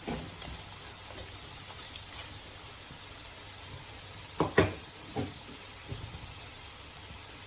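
Chicken and spices frying in a pan with a faint, steady sizzle. About four and a half seconds in, a stirring utensil knocks against the pan four times, a quick pair and then two single knocks.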